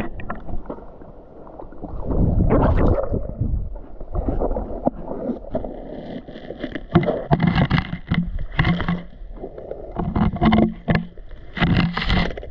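Muffled sound of water with the camera held under water: a low rumble with irregular bursts of bubbling and sloshing, one loud burst at about two seconds and a busier run of them from about six seconds in.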